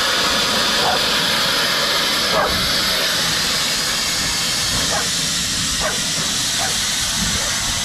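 LMS Black Five steam locomotive 45212 hissing steadily with its cylinder drain cocks open as it moves slowly off along the platform.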